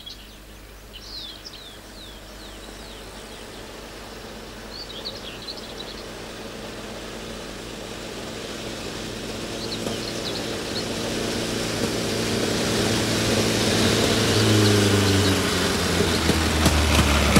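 Vintage truck engine approaching and growing steadily louder, its pitch dropping about three-quarters of the way through as it slows. Birds chirp during the first few seconds.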